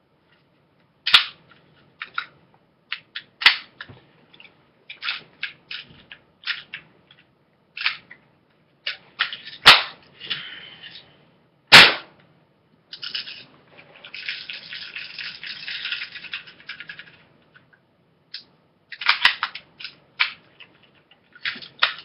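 Crosman Pumpmaster BB gun being handled and worked: a string of mechanical clicks and clacks, with two sharp cracks about two seconds apart near the middle and a few seconds of rasping noise soon after.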